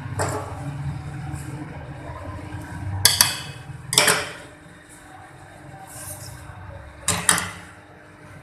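A spoon knocking against a metal cooking pot three times, sharp clinks spaced a few seconds apart, as ginger and spices go into the dal. A low steady hum runs underneath.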